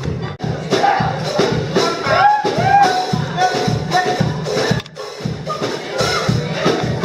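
Congregation singing a lively worship song, with hand percussion beating steadily. Voices hold long notes around the middle.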